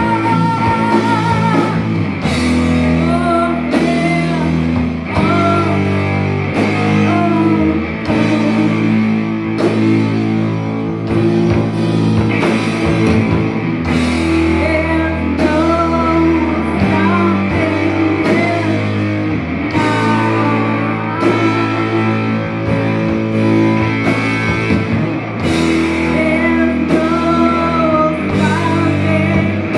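Live rock band playing: a woman singing over electric guitar, bass and drums, with the bass changing notes every couple of seconds.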